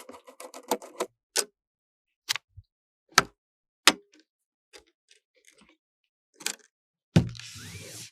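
Computer parts being handled during assembly: a quick run of small clicks, then single sharp plastic and metal clicks and taps, and near the end a thump followed by a brief rustle.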